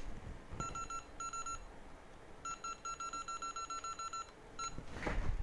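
Short, identical electronic beeps from bench equipment: a few single beeps, then a quick run of about a dozen at roughly seven a second, then one more. A brief handling noise comes near the end.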